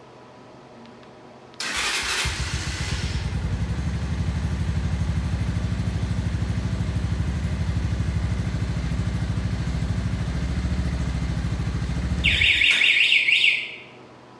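Shelby Renz 200 motorcycle, a Chinese Ninja-replica 200 cc bike: the engine starts about a second and a half in and idles steadily for about ten seconds, then is switched off. Just before it stops, a high electronic warbling beep like an alarm chirp sounds for about a second.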